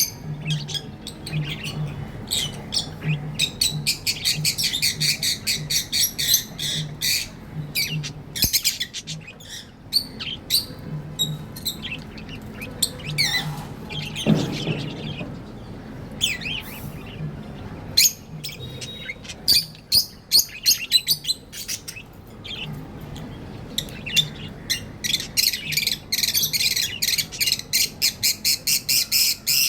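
A flock of pet budgerigars chirping and warbling, rapid chatter that comes in busy runs with a few quieter gaps.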